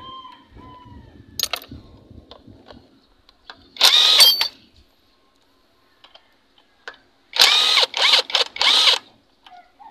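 Cordless impact wrench unscrewing bolts from a Toyota 2E engine block: one burst about four seconds in, then four short bursts in quick succession near the end.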